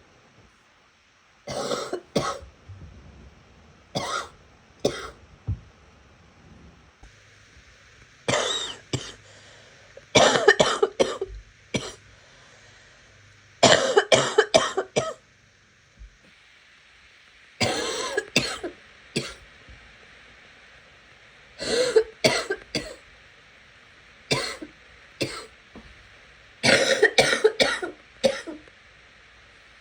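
A sick person coughing in repeated fits of several short, sharp coughs, about ten bouts with brief pauses between them. The coughs are wet and chesty, as the cough has become by this late stage of the illness bout.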